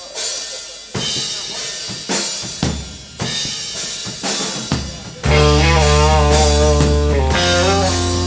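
Rock band playing live: single drum hits with cymbal accents for the first five seconds, then the full band comes in loudly with bass and guitar, in a psychedelic rock style.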